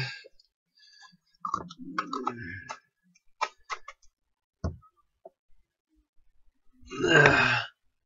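Egg-shaped dwarf figures and small toys being picked up and set down on a wooden table, with scattered light clicks and rustles. About seven seconds in comes one short, loud, throaty vocal sound.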